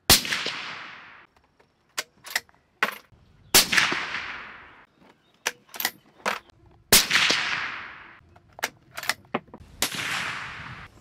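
Suppressed .308 Winchester Ruger American bolt-action rifle fired four times, each report fading away over a second or so. Between shots come short metallic clicks as the bolt is worked.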